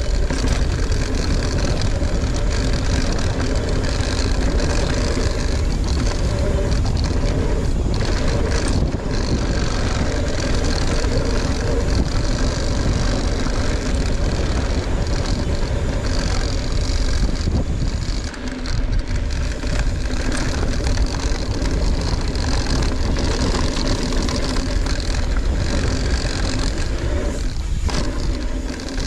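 Mountain bike riding down a dirt trail: a steady rush of wind on the microphone over the rumble of the tyres, briefly easing about two-thirds of the way through.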